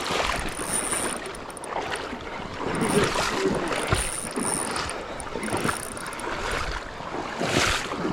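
River water rushing and splashing in irregular bursts, with wind buffeting the microphone.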